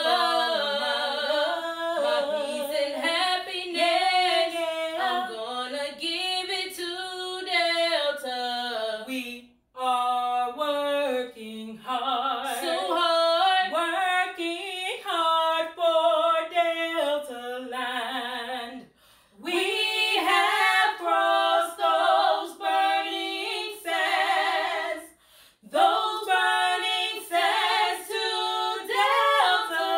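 Women's voices singing a cappella, with three brief pauses between phrases.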